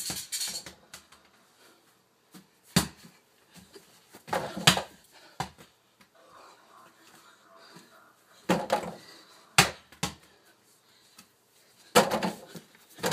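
A mini basketball striking an over-the-door hoop's rim and backboard, several sharp knocks with a short rattle a few seconds apart.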